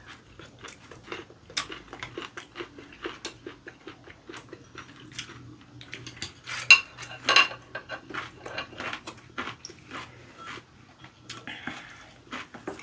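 Chopsticks clicking and tapping against porcelain rice bowls and plates during a meal, many small clicks with some chewing; two louder clacks about seven seconds in.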